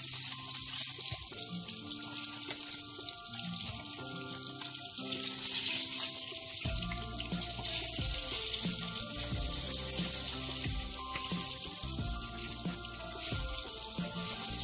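Herrings frying in hot oil in a pan, a steady sizzle, over background music.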